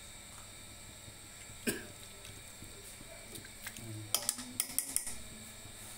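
Light metal clinks against a steel cooking pot. There is one sharp knock about a second and a half in, then a quick run of about seven clinks near the end.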